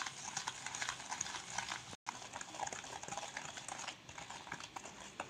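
Wire whisk beating butter and powdered sugar together in a stainless-steel bowl: quick, irregular scraping and clicking of the wires against the metal. There is a brief break to silence about two seconds in.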